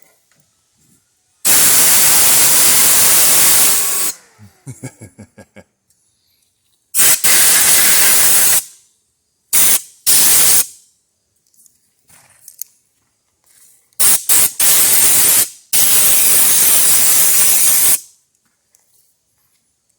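Compressed air blown in repeated hissing blasts of one to three seconds each, about five in all, blowing dust out of a PC case and onto its fan. After the first blast comes a short run of ticks that slow down.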